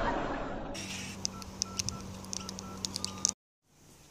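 A hiss fades away, then a mobile phone's keypad beeps several times: short electronic tones all at one pitch, mostly in pairs, over a low steady hum with a few sharp clicks. The sound cuts off abruptly a little after three seconds in.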